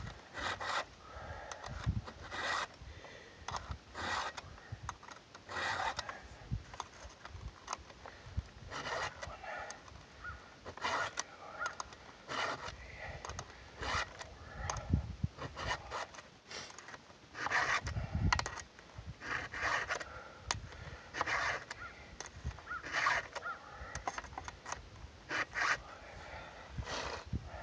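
Round chainsaw file rasping across the cutters of a Stihl MS 290 chain in repeated push strokes, roughly one a second with short pauses, as the chain is sharpened tooth by tooth.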